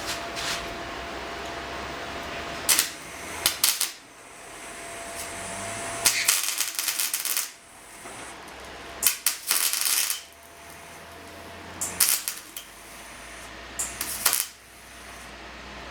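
MIG welder laying short bursts of weld, each a crackling sizzle of about a second, five times with pauses between, welding up rust holes in car body steel. A faint steady hum carries on between the bursts.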